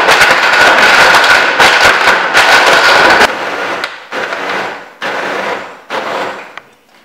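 Red countertop blender running at full speed, blending a protein shake with a steady high whine, and cutting off about three seconds in. Then it is pulsed three times, each short burst winding down as the motor stops.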